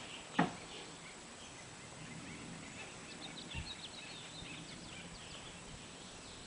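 Faint outdoor ambience with small birds chirping, and a single sharp crack about half a second in.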